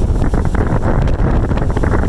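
Strong wind buffeting the microphone: a loud, continuous low rumble with rapid, irregular crackle.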